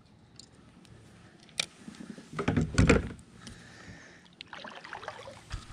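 Kayak paddle strokes: the blade dipping and splashing in the water, with a sharp knock about a second and a half in and a louder burst of splashing and knocking around the middle.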